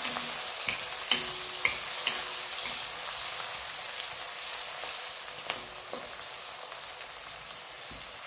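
Green capsicum pieces sizzling in hot oil in a metal kadai, stirred with a wooden spatula that now and then knocks and scrapes against the pan. The sizzle eases off a little in the second half.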